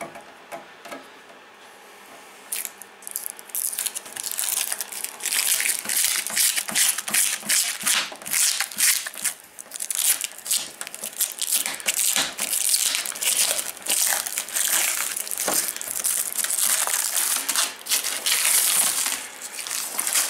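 Clear protective plastic film being peeled and pulled off a roof vent fan's lid by hand, crinkling and crackling continuously from about two and a half seconds in.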